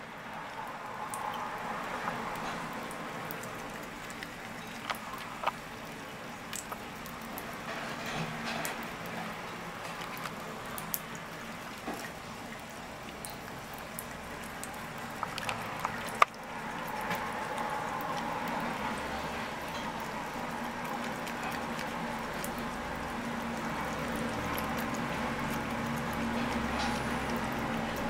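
Thin stream of tap water running into a sink while a cat laps at it. Small sharp clicks are scattered over the steady running water, the loudest about halfway through.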